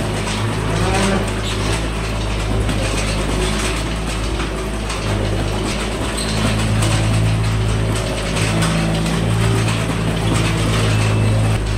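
Self-propelled bale unroller running, its engine hum under a steady mechanical clatter from the unrolling mechanism as it feeds a round hay bale out.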